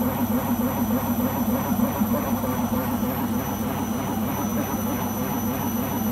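Beko washing machine spinning with a loud, steady mechanical drone from the drum; the owner suspects the rubber behind the drum.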